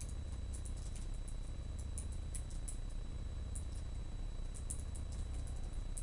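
Typing on a laptop keyboard with very long fingernails: quick, irregular clicks of nails and keys in short runs, over a steady low hum.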